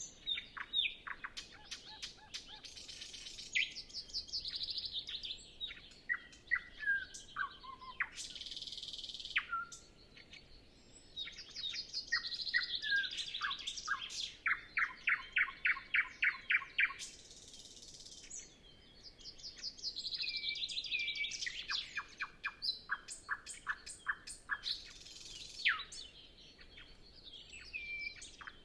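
Common nightingale singing: a run of varied song phrases made of fast repeated notes, rapid trills and clear whistles, each phrase a few seconds long with short pauses between.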